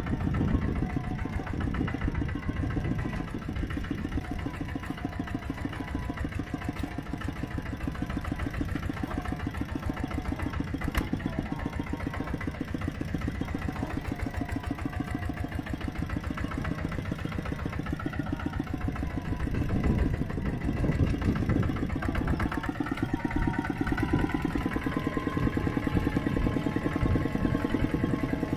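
Several mini tractor engines running together with a rapid, steady beat.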